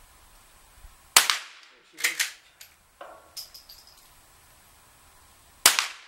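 Two shots from a Winchester Model 62 pump-action .22 rimfire rifle, about a second in and near the end. After the first shot come short metallic clacks as the slide is worked to eject and chamber the next round.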